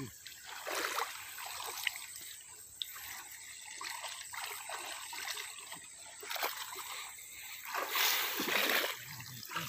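Shallow muddy water splashing and sloshing as people wade and grope by hand among reeds for fish, with a louder splash about eight seconds in.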